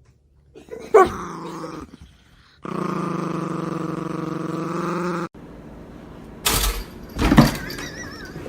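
Dog barking and growling: a bark about a second in, then a steady growl of nearly three seconds that cuts off suddenly, then two more sharp barks.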